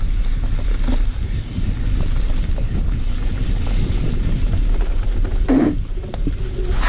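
Specialized Enduro Comp mountain bike descending a dirt forest trail at speed: steady tyre rumble over the ground with irregular rattles and knocks from the bike, and wind rushing on the camera microphone.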